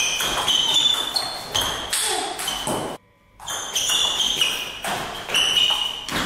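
Table tennis rally: the ball clicking back and forth off paddles and table in quick succession. The sound cuts out for a moment about three seconds in, then another rally starts.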